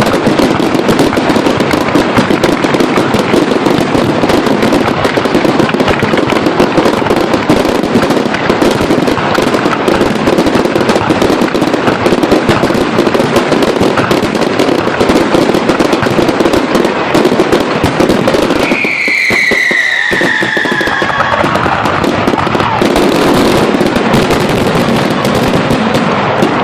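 Fireworks display going off in a dense, continuous barrage of bangs and crackles. A little over two-thirds of the way through, the barrage thins briefly and a whistling firework gives a falling whistle lasting about two seconds.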